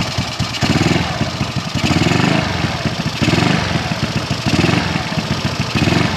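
Yamaha Mio scooter's four-stroke single-cylinder engine running at idle just after starting, its low note swelling about once a second. The valve clearance has just been tightened by feel after being found far too loose.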